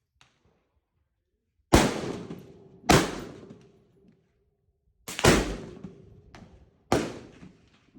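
Four shots from an AR-15 rifle, unevenly spaced over several seconds, each sharp crack trailing off in a decaying echo.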